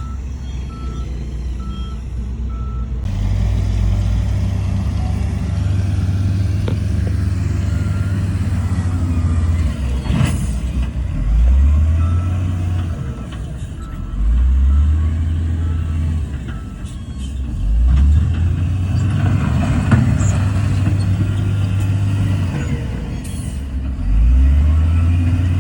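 Heavy diesel earthmoving machinery running loud. A reversing alarm beeps about twice a second for the first few seconds. After that the engine revs up under load several times.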